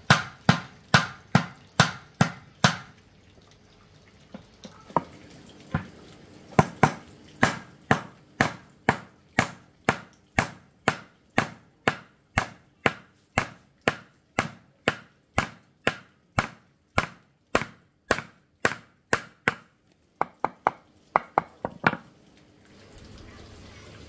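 Repeated chopping strikes, about two a second and evenly spaced, with a pause of a few seconds early on, then a long steady run and a quicker burst near the end.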